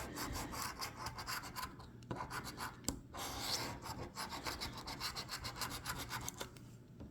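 A 2024 Doubler scratch-off lottery ticket being scratched with rapid back-and-forth scraping strokes, broken by a few short pauses.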